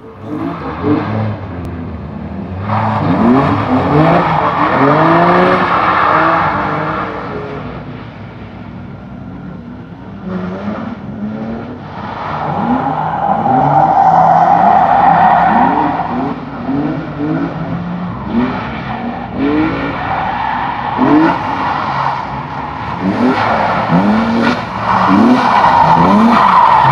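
BMW coupe engine revved hard in short bursts, rising and dropping again and again as the car slides, with long tyre squeals from the sideways tyres, loudest about halfway through and near the end.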